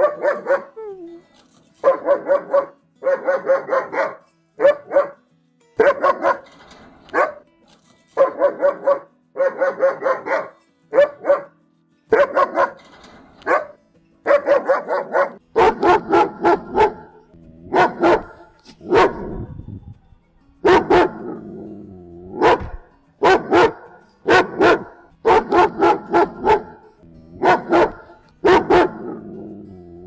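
German Shepherd barking in repeated volleys of two to four barks with short pauses between. About halfway through, a second recording takes over, with deeper, sharper barks coming more often.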